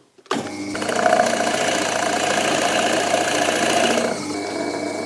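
Pillar drill's motor starting up and a large Forstner bit boring a 35 mm counterbore into a wooden block: a steady motor hum under the rough sound of the bit cutting. About four seconds in it goes quieter as the cut lightens, and the motor runs on.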